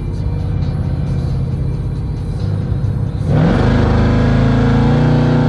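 Supercharged Hemi V8 of a Jeep Grand Cherokee Trackhawk with a Gthaus valved cat-back exhaust, heard from inside the cabin: a low steady rumble while cruising, then about three seconds in a hard burst of throttle, the note climbing quickly and holding loud before dropping away at the end.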